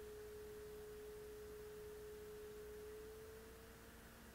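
A faint, steady single-pitch tone, like an electronic whine or hum, fading out near the end as a fainter, lower tone takes over.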